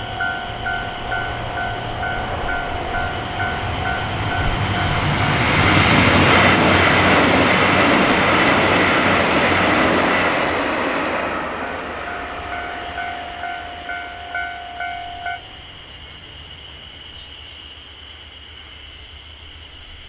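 Level-crossing warning bell ringing at about two strikes a second while a diesel passenger train passes over the crossing. The train's noise swells to the loudest point in the middle and fades, with the bell heard again afterwards until it stops about fifteen seconds in.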